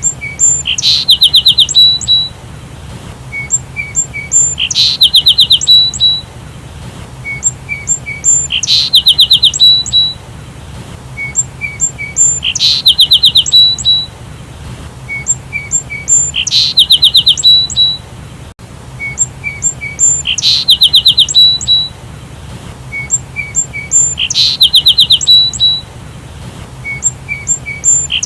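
Sparrow calling: a few short chirps, then a loud rapid chattering trill of about eight notes that ends in two separate notes. The same phrase repeats almost identically about every four seconds, like a looped recording.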